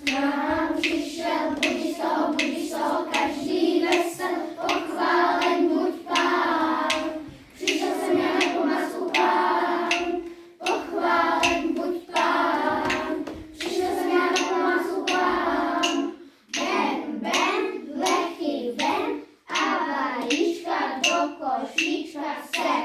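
A group of children singing a song together, with hands striking a steady beat about twice a second.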